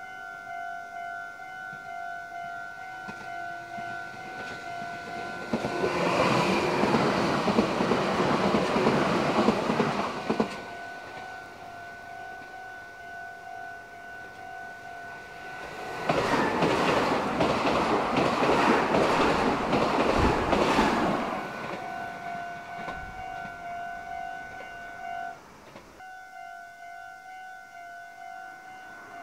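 Two Meitetsu electric trains pass close by one after the other: about six seconds in, then again about sixteen seconds in. Each is several seconds of loud rushing with the wheels clattering over the rails. Between and after the passes a steady, high electronic ringing tone carries on, breaking off briefly near the end.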